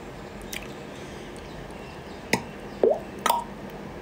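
A pause in talk: a few faint mouth clicks and one short rising murmur, over a steady low room hum.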